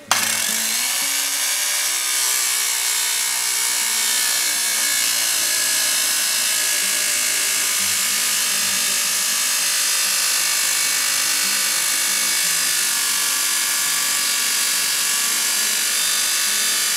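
Hand-held circular saw running a DeWalt abrasive cut-off wheel through 16-gauge stainless steel sheet: a loud, steady grinding with a strong high hiss, held without a break.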